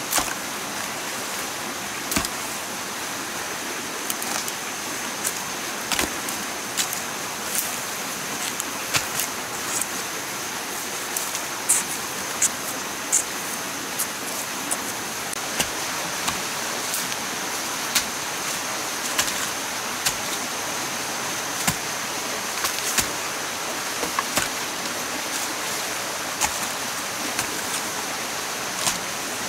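Steady rushing, water-like noise with a thin, high, steady whine running through it, broken by sharp knocks that come irregularly, about once a second.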